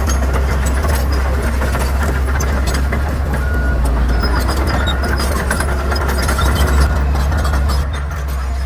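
Bulldozer's diesel engine running with a steady low drone, with scattered sharp clicks and cracks over it. The sound falls off somewhat near the end.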